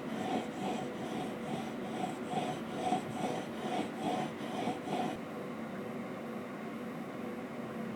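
Chisel in a honing guide pushed back and forth over a 1200-grit diamond sharpening stone wet with lapping fluid, a steady rasping stroke about twice a second. The strokes stop about five seconds in, leaving a faint steady hiss.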